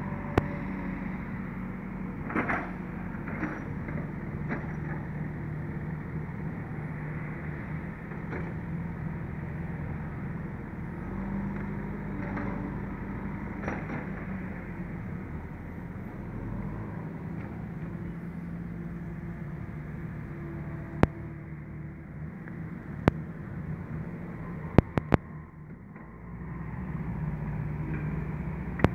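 A steady low engine hum, with a handful of sharp clicks in the last third.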